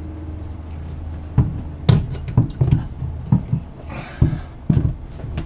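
A run of about ten irregular knocks and bumps, starting about a second and a half in, as a Capilano hydraulic steering helm pump is pushed and turned into its mounting hole in a bulkhead panel. A steady low hum runs underneath.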